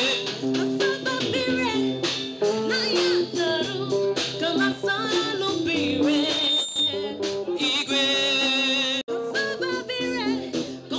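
A woman singing a church song into a microphone, amplified over a loudspeaker, with instrumental accompaniment; the sound drops out for an instant about nine seconds in.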